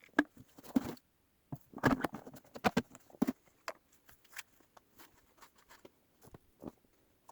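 Scattered clicks and knocks of a chainsaw being handled and readied, with no engine running; a start attempt has not caught.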